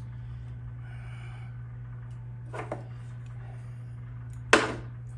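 Small hard objects being handled: a quick double click about two and a half seconds in, then one sharp, loud knock near the end, over a steady low hum and a faint breath.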